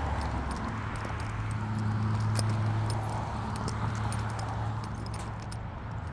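Light metallic jingling, over a steady low engine hum that swells about two seconds in and then fades.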